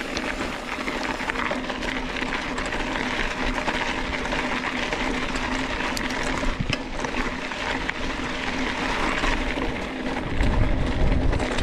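Mountain bike rolling over a rocky trail strewn with loose stones: a steady noisy crunch and rattle of tyres and bike over rock, with a few sharp knocks around the middle and a low rumble near the end.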